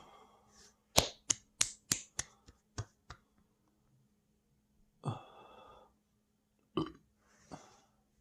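A person belching repeatedly after a very large meal: a quick string of about eight short, sharp belches, about three a second and fading, then a longer belch about five seconds in and a short one near the end.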